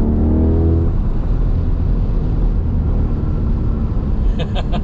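Chevrolet Corvette C8 Stingray convertible on the move with the top down: steady wind and road noise over the low rumble of its V8 engine.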